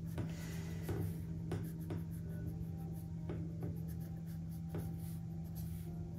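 Pencil strokes on sketchpad paper as a portrait is shaded: about ten short, irregularly spaced strokes.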